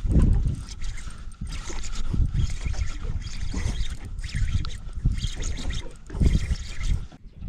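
Water slapping and gurgling against a small boat's hull, with wind buffeting the microphone in uneven gusts, strongest at the start and again about six seconds in.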